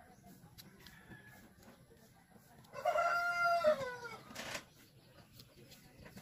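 A rooster crows once, about three seconds in: one call held level, then dropping in pitch at the end. A short sharp click follows just after it.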